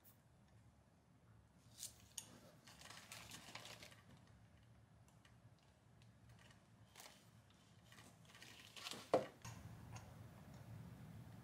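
Faint clicks, knocks and rustles of microphone gear being handled and set up, with one sharper knock about nine seconds in.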